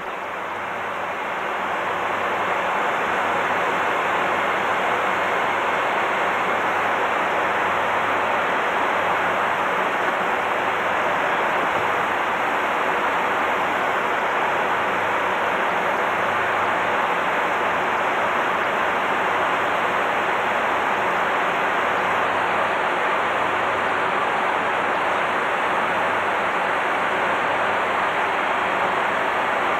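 Steady rushing noise inside a KC-135 tanker's cockpit in flight, the jet engines and the airflow past the fuselage blended into one even roar. It swells over the first two or three seconds and then holds level.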